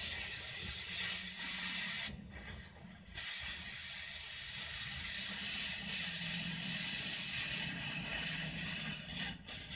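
Oxy-fuel cutting torch hissing steadily as it cuts through metal on the engine. The hiss drops out for about a second about two seconds in, and dips briefly again near the end.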